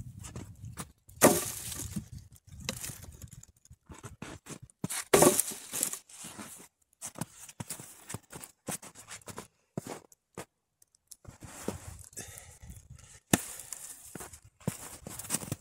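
Cut firewood log rounds dropped one at a time onto a woodpile: heavy thuds about a second in and about five seconds in, and lighter ones near the end. Footsteps crunch on snow and leaves in between.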